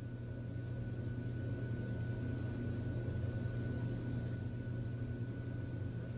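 A steady low hum under a light hiss, with a thin high tone held throughout.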